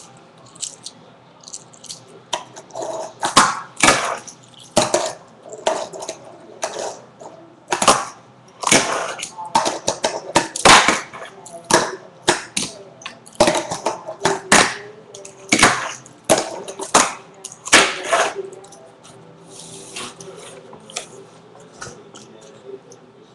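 Tech Deck fingerboard clacking on a cardboard ramp and a wooden tabletop: a run of sharp, irregular clacks, dense through the middle and thinning out near the end.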